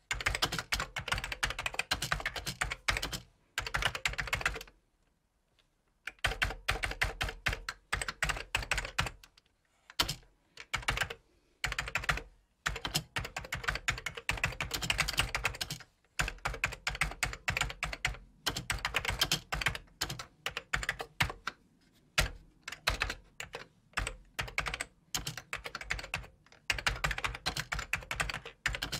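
Typing on a computer keyboard: quick runs of key clicks in bursts of a few seconds, broken by short pauses, the longest about five seconds in.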